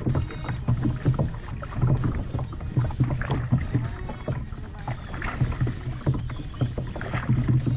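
Water splashing and lapping against a tandem kayak's hull as it is paddled, with the paddle blades dipping in irregularly.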